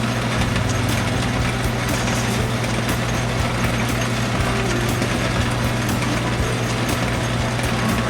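Atlas metal lathe running steadily under power, with a constant low hum and faint irregular ticking.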